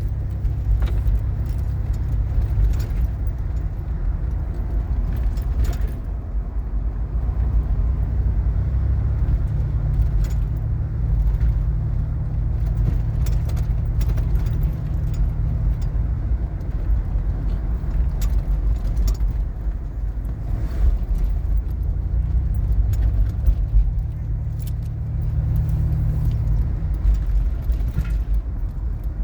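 Car interior road noise while driving: a steady low drone of engine and tyres, with light scattered rattles and ticks.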